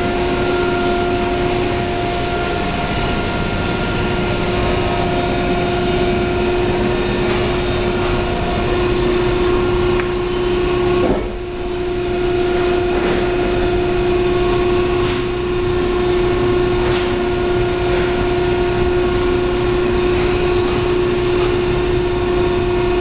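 Sumitomo injection molding machine running: a steady machine hum with a constant pitched whine, briefly dipping about halfway through.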